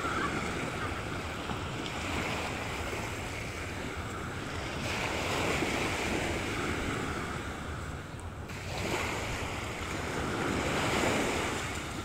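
Small sea waves washing onto a beach and drawing back, swelling louder every few seconds, with some wind on the microphone.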